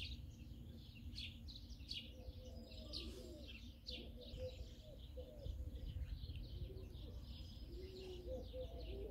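Small birds chirping rapidly and repeatedly, with a pigeon cooing in low, rising and falling calls several times, over a faint steady low rumble.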